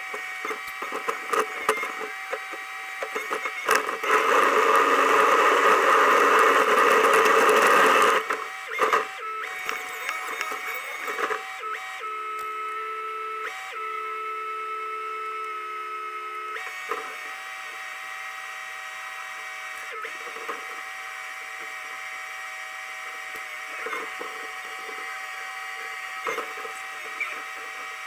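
Hydraulic excavator's engine and hydraulics running, heard from inside the operator's cab: a steady whine with scattered clicks and knocks. A much louder rushing surge lasts about four seconds near the start, and a second steady set of tones comes in for a few seconds mid-way.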